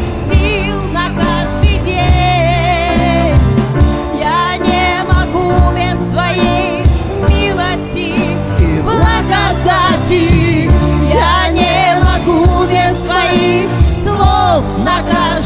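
Live Christian worship song: singing with vibrato over electric guitar, bass guitar and keyboard, with a steady beat.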